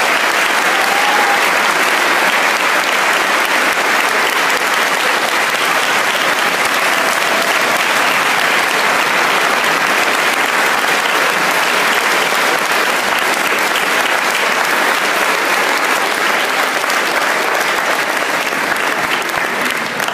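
A large audience applauding steadily, a dense wash of many hands clapping, tapering off near the end.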